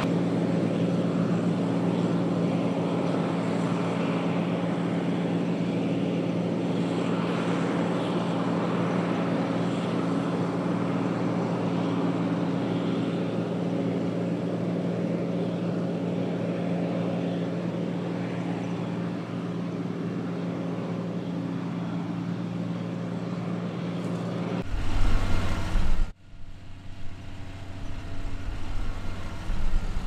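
John Deere 9580i WTS combine harvester running steadily under load, a continuous machine drone with a low, even hum. About 25 seconds in it gives way to a louder, different sound that cuts off abruptly a second later.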